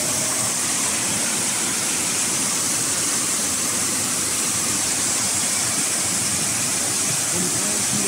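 Waterfall cascading over rocks, a steady, even rush of water.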